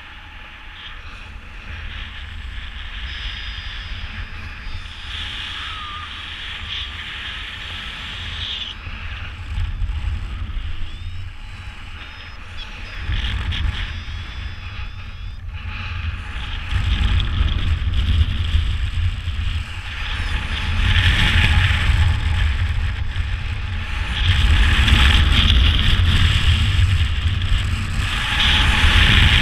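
Rushing airflow buffeting the microphone of a paraglider pilot's camera during wingovers, mostly a deep rumble with a hiss on top. It surges louder in waves as the swings grow steeper and is loudest over the last dozen seconds.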